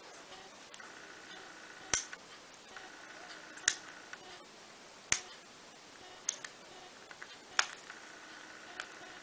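Small, fine-pointed parchment-craft scissors snipping through perforated parchment paper: six short, sharp snips about a second and a half apart, the last one faint.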